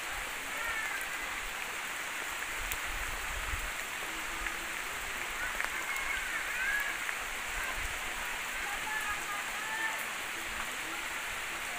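Steady rain falling on the leaves, ground and roofs, an even hiss with scattered drips.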